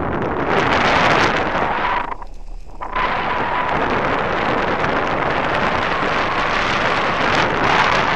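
Wind rushing over a microphone mounted on a hang glider's wing in flight, a loud steady roar of airflow that drops away briefly about two seconds in before returning.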